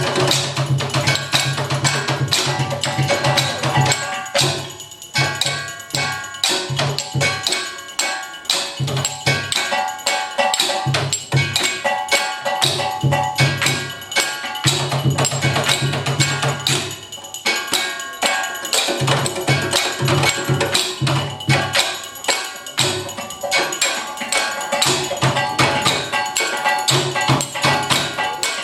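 Live percussive music: a dense stream of rapid knocks and clicks over a low bass note that sounds in repeated stretches, with held higher tones.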